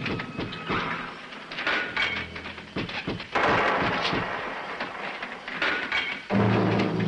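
Horror film trailer soundtrack: a run of heavy knocks and crashes, with a hissing, rushing burst of noise about three seconds in that lasts about two seconds. A low held tone comes in near the end.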